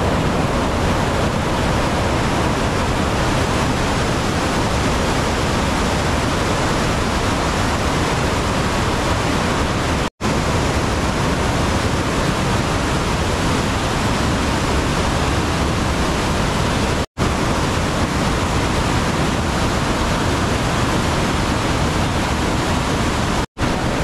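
Loud, steady rush of white water pouring down a dam's concrete spillway channel. The sound cuts out for an instant three times.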